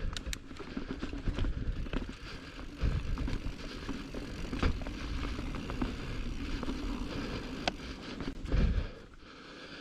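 Giant Trance mountain bike being ridden over rough singletrack: steady tyre rumble with scattered clicks, knocks and rattles, and a heavier bump near the end.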